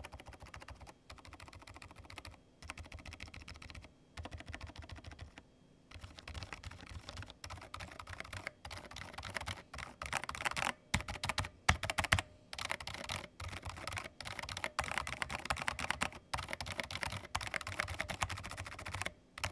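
Fast, continuous typing on a Thinkway Tauche.T 301 mechanical keyboard with silent linear switches: quiet, soft keystrokes in quick runs with a few brief pauses, growing louder about a third of the way in.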